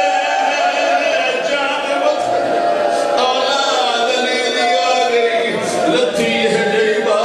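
A man's voice chanting a mournful recitation into a microphone, in long held, wavering notes that break into phrases.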